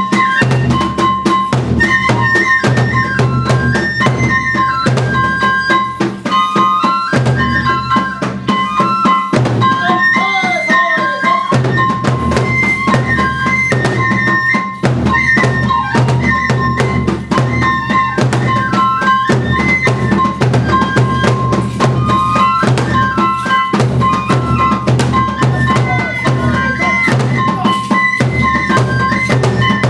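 Kagura music: a taiko drum beating continuously under a high bamboo flute melody that steps between notes.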